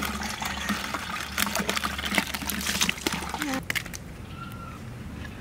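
Live koi (climbing perch) being handled between a bucket of water and a wicker basket: water splashing and wet, slapping clicks as the fish thrash. The splashing dies down about three and a half seconds in.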